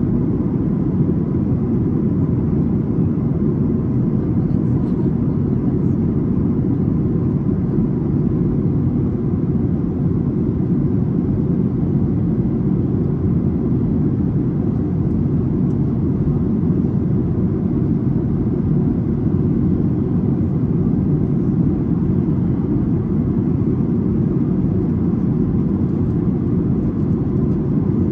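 Steady cabin noise inside a Boeing 737 airliner, with the engines and airflow making an even low rumble that does not change.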